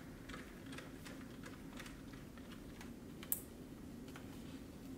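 Faint scattered clicks and ticks of a small Phillips screwdriver working a case screw and fingers handling a laptop's plastic case, with one sharper click about three seconds in.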